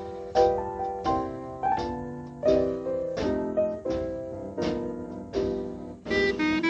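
Background Dixieland jazz: a piano solo of chords struck one after another, each dying away. Near the end the horns come back in with held, wavering notes.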